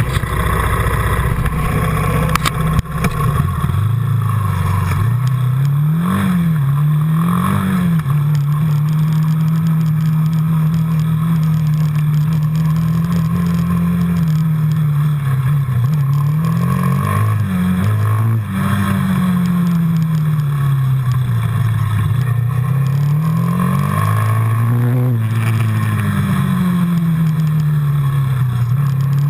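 Quad bike engine running on the move, its pitch rising and falling again and again as the throttle is opened and eased.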